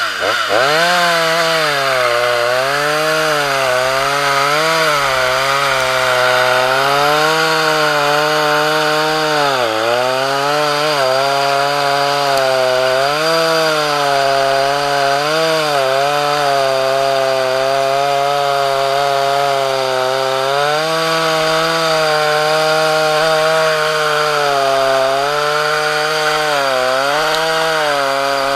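Two-stroke chainsaw revving up and then cutting at full throttle down through a bundle of stacked branches in a sawbuck cradle. The engine pitch sags and recovers again and again as the chain loads up in the wood.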